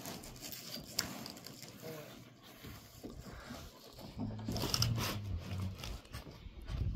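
Rustling and handling noises from a roll of foil-faced bubble-insulation roofing underlayment being unrolled and smoothed by hand, with a few light knocks in the first seconds and a louder stretch of low noise just past the middle.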